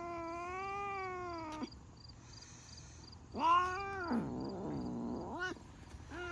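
A cat yowling in long, drawn-out calls: one ends about a second and a half in, a second starts about three seconds in and wavers before sliding lower, and a third begins near the end.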